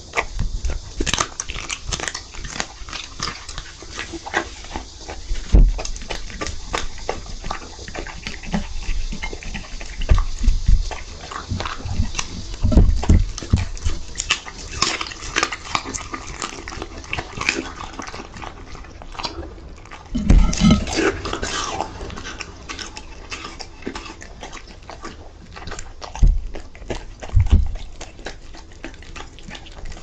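Dog eating raw meat and poultry wings from a plate: irregular wet chewing, smacking and biting, with louder bouts of chewing now and then.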